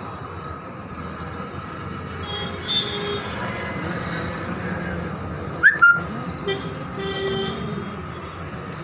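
Steady background road traffic noise with faint horn toots. About six seconds in, two sharp clicks come close together.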